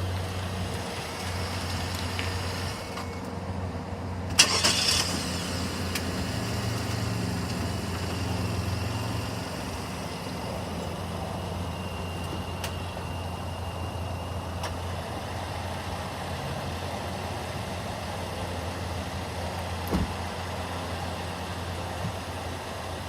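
Car engine idling steadily with a low, even hum. A sharp knock with a brief rush comes about four seconds in, and a single click comes later.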